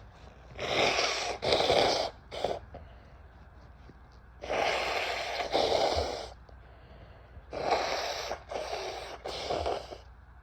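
A woman blowing her nose hard, in three rounds of two or three forceful blows each, a couple of seconds apart.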